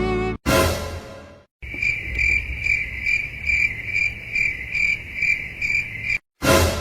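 Cricket chirping: a steady high trill pulsing about twice a second. It is framed by a short burst of noise about half a second in and another near the end.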